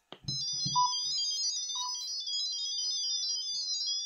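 A quick run of high electronic beeps that step up and down in pitch like a ringtone melody, the pairing tones of a Wi-Fi security camera's QR-code setup. A knock and a few low handling thuds come just before the tones begin.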